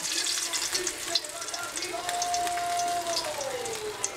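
Fish frying in hot oil in a metal wok, a steady sizzle full of small crackling pops. A held tone in the background slides lower in pitch about three seconds in.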